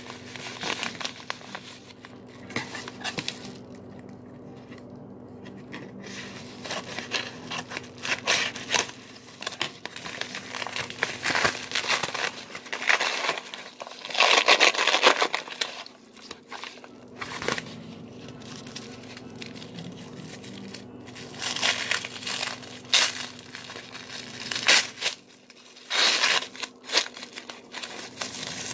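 Yellow padded paper mailer being handled and torn open, its paper crinkling and tearing in irregular bursts, loudest about halfway through. Near the end the white paper wrapping of the contents rustles as it is pulled out.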